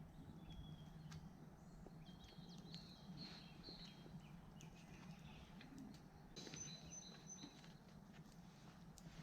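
Faint outdoor ambience with birds chirping in short calls, mostly in the second half, over a steady low background hum and a few small clicks.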